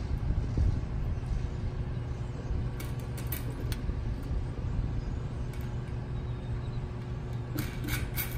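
Steady low outdoor rumble with a faint steady hum, and a few small metallic clicks about three seconds in and again near the end as washers and nuts are threaded by hand onto an antenna's U-bolt mount.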